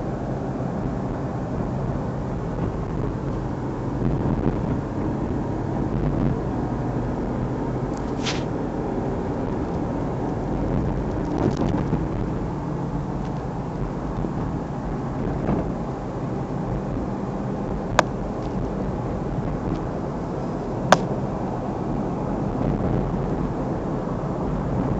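Steady road noise heard from inside a moving car's cabin: the low rumble of engine and tyres at traffic speed, with a few brief hissy swells and two sharp clicks about three seconds apart in the second half.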